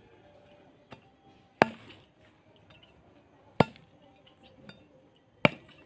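A machete-like knife chopping into palmyra palm seeds: three sharp chops about two seconds apart, with a lighter tap about a second in.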